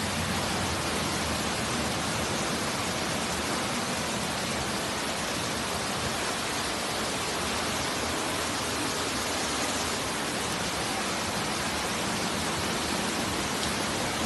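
Heavy downpour and rushing water: a steady, even hiss that holds at one level without breaks.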